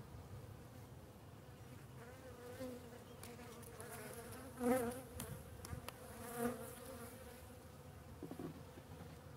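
Honeybees buzzing around an open hive while a comb frame is held out of it; twice, about halfway through, a bee flies close by and its wavering hum grows briefly louder. A few light clicks are heard as well.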